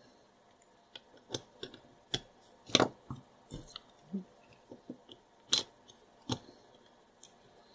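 Small plastic and brass parts of a dismantled rocker light switch being handled, giving a scattering of light clicks and taps, the loudest two about a third of the way in and past the middle.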